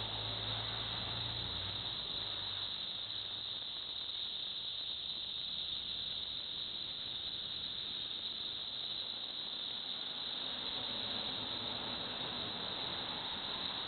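A chorus of cicadas droning steadily, a continuous high buzz that does not let up. A low hum underneath dies away about a second and a half in.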